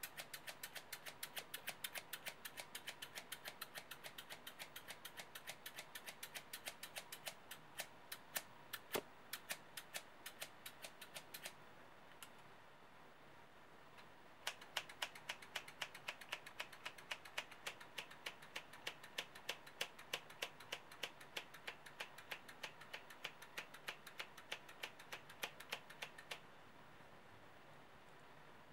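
A pair of scissors snipped open and shut again and again, a quick run of crisp metal clicks about five a second as the blades close. The snipping stops about twelve seconds in and starts again a couple of seconds later.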